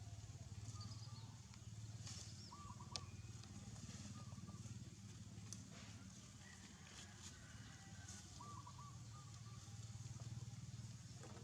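Faint rural outdoor ambience: a steady low hum with a few short, quick chirping bird calls and a single sharp click about three seconds in.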